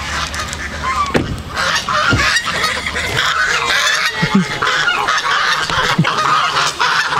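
A flock of domestic geese honking together, the calls overlapping and growing denser about a second and a half in. The birds are calling at the arrival of food, which the farmer reads as them knowing the produce is here.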